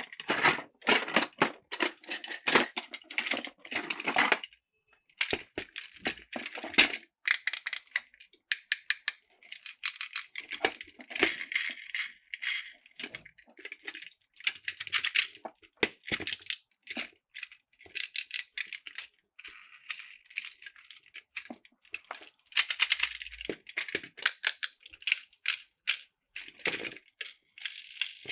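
Plastic toy train cars and track pieces clattering and clicking against each other, in irregular spells of sharp rattles with brief pauses between.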